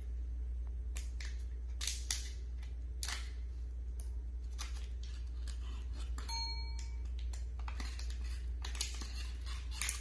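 Fingers crinkling and tugging at a small sealed test-kit packet, trying to tear it open by hand: irregular crackles and short tearing scrapes throughout.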